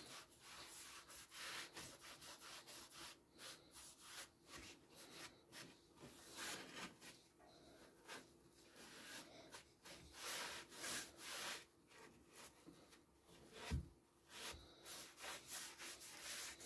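A small pad rubbing liquid finish into wooden boards in repeated short strokes, with one dull knock near the end.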